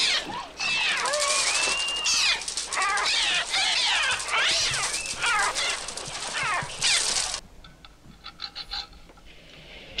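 Film soundtrack of a gull attack: a dense swarm of shrill gull cries, overlapping and rising and falling in pitch, which cuts off abruptly about seven seconds in, leaving only faint scattered sounds.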